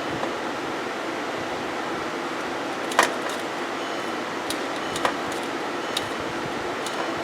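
A few sharp clicks, the loudest about three seconds in, as the ignition key of a 2001 Volkswagen Passat 1.8T is turned to start over a steady background hiss. No starter motor or engine sound follows: a no-crank condition.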